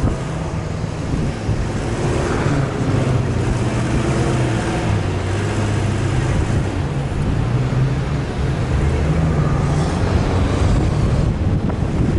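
An off-road vehicle's engine running as it drives, its pitch rising and falling a little, with a steady rumble and wind noise.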